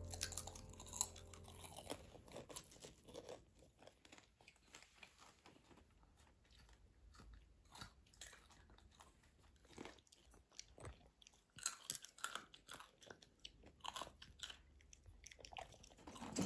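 Faint, irregular crunching and chewing of popcorn, salted and caramel, as children eat it by the handful, with light rattles of hands picking through the bowls.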